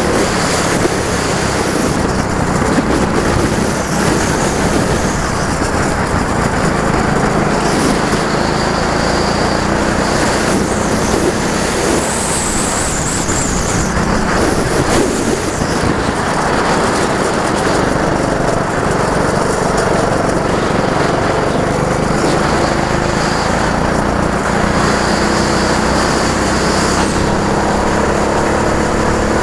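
Go-kart engine running hard on track, its note rising and falling as it speeds up and slows down, under heavy wind and tyre noise.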